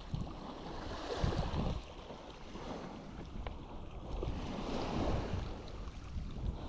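Wind buffeting the microphone over the wash of small waves on the shore, a steady rushing noise with low gusty rumbles.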